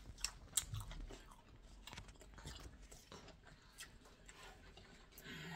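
A person chewing a mouthful of food, with faint, irregular mouth clicks that are densest in the first second.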